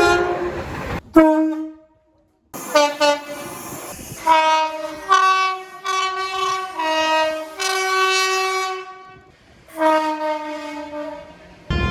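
UK train horns in quick succession, joined by abrupt cuts: a couple of blasts, a run of short toots, then a two-tone horn sounding alternating high and low notes over and over. Near the end the rumble of a train running on the track comes in.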